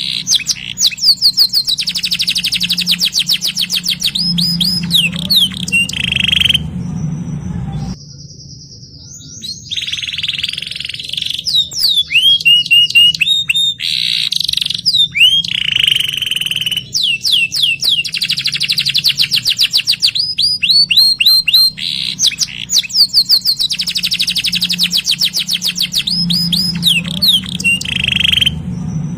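Domestic canary singing long phrases of rapid repeated trills and rolls, each run of fast sweeping notes giving way to the next, with a short break about seven seconds in.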